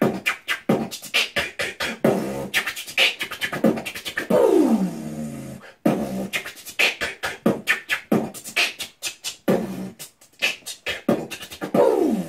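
Human beatboxing used in place of talk: fast runs of vocal clicks and percussive hits, broken by sung notes that glide downward, with a short break about six seconds in.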